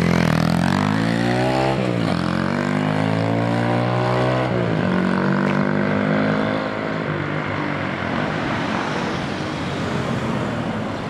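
Honda Monkey Z50 minibike's small engine accelerating away, its pitch rising, dropping at a gear change about two seconds in, rising again and dropping at a second shift. The engine note then fades out, leaving steady road noise.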